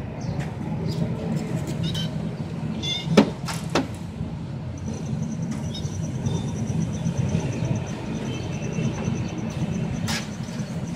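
Steady low background rumble, with two sharp knocks about three seconds in and a faint high pulsing tone through the second half.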